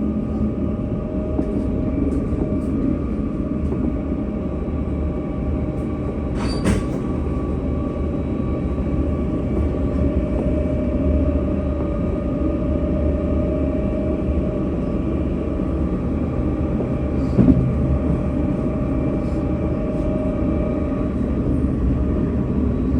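Tram running on its rails: a steady low rumble with a steady electric motor whine over it. Two brief sharp sounds stand out, a squeak-like click about six and a half seconds in and a louder knock about seventeen and a half seconds in.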